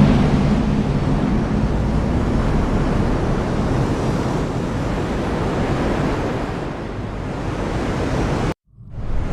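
Heavy rain falling with a steady, dense hiss and a strong low rumble. A deeper rumble dies away in the first second. Near the end the sound cuts out abruptly for a moment, then fades back in.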